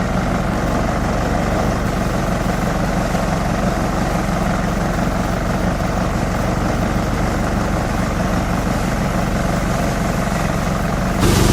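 Multi-purpose chopper-shredder machine running steadily with a low, even hum. Near the end the sound abruptly grows louder, with a harsher hiss added.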